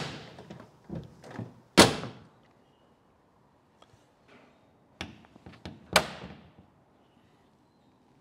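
Holden Torana LJ car door, freshly hung on new hinge pins and barrels, being opened and shut. It latches with a solid shut about two seconds in and again about six seconds in, with lighter clicks of the handle and latch between. The clean latching is the sign of a good door fit, shutting really nicely with no stress on the hinges.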